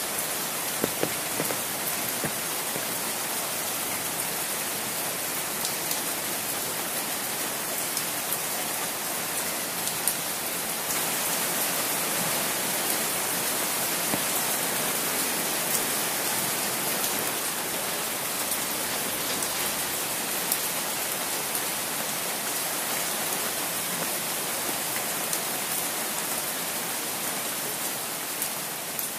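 Steady rain falling, with a few single drop hits standing out. It gets slightly louder about eleven seconds in and fades a little near the end.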